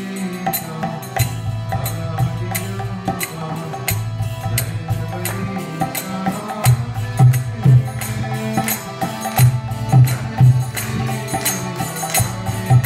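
Harmonium playing sustained chords and melody in a devotional kirtan. Percussion strikes keep a steady rhythm, and heavier drum beats come in from about halfway.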